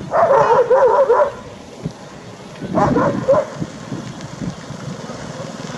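A dog yelping in a quick run of high, repeated cries lasting about a second, then another short burst of yelps about three seconds in. A motorbike engine grows louder toward the end.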